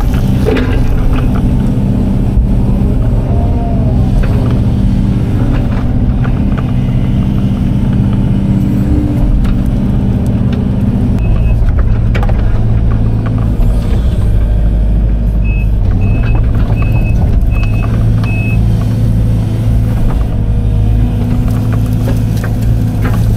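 Case hydraulic excavator's diesel engine running under load, heard from inside the cab, with scattered knocks as the bucket works. The engine note drops about halfway through, and a little later come five short high beeps in a row.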